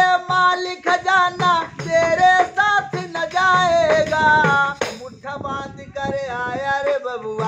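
A man singing a melody while beating a hand-held tambourine with a skin head, its jingles rattling on each strike in a steady beat.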